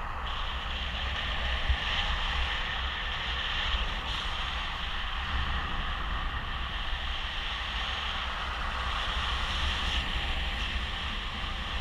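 Steady wind rushing past a paraglider pilot's camera microphone in flight, a constant airflow hiss with a low buffeting rumble underneath.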